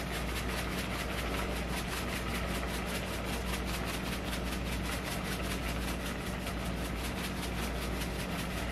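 A steady low hum with a fast, even pulsing hiss over it: a small motor or fan running.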